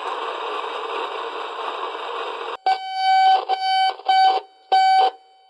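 Broken Otamatone Techno making a horrible screeching sound: a harsh, noisy hiss for about two and a half seconds, then a buzzy tone stuck on one pitch, cut into a series of short and longer beeps.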